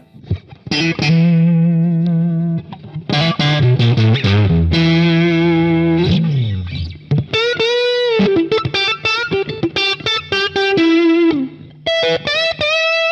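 Electric guitar through a Boss Katana 100 amplifier, recorded straight from the amp's USB output, with a light overdrive. A few sustained chords ring out, then the pitch falls, then comes a single-note lead phrase with string bends and vibrato.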